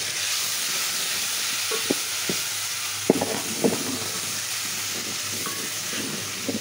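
Sliced onions and garlic sizzling steadily in hot oil in a metal pot, with a spoon stirring and knocking against the pot's side several times, the loudest knocks about three to four seconds in.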